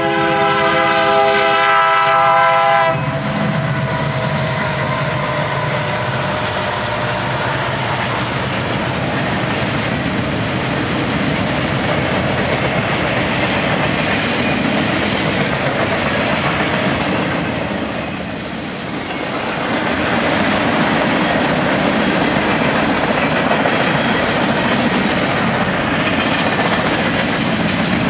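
Diesel freight locomotive's multi-chime horn sounding one chord that ends about three seconds in, followed by the steady rumble and wheel clatter of a long freight train's cars rolling past.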